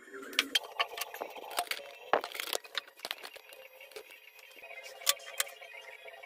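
Irregular sharp metallic clicks and knocks, a dozen or so, several much louder than the rest, from parts and tools being handled at a copy lathe.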